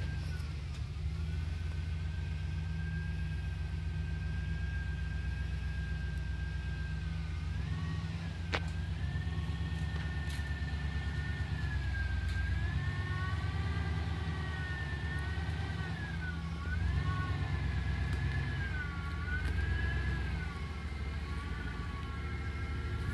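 Jeep Grand Cherokee ZJ's straight-piped 318 (5.2 L) V8 working at low speed up a steep dirt trail: a steady deep exhaust rumble, with a high whine over it that wavers up and down, more so in the second half. One sharp click about eight and a half seconds in.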